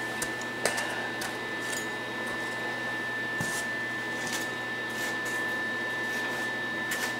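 Steady background hum with a constant faint high tone, and a few faint scattered clicks and knocks.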